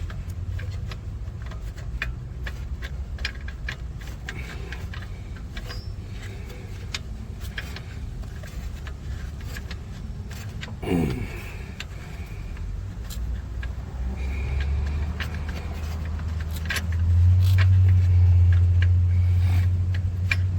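Irregular metal clicks and scrapes of a hand tool working on an upstream O2 sensor in a BMW X5 engine bay, with a steady low rumble underneath that grows louder in the last few seconds. A brief falling whine sounds about eleven seconds in.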